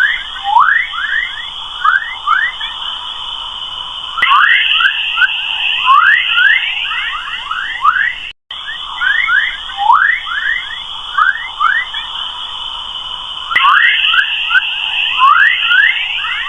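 Recording of Earth's 'chorus' plasma waves picked up by a space probe and turned into sound: a stream of quick rising electronic chirps, like birds, over a steady high whistling band. The chirping thickens about four seconds in, and the recording loops after a brief dropout halfway through.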